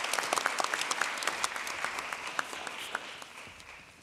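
Audience applauding, the clapping tapering off over the last second and a half.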